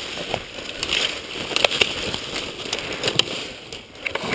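Leaves and twigs rustling and crackling close to the microphone as someone pushes through dense brush by hand, with scattered sharp snaps of small branches.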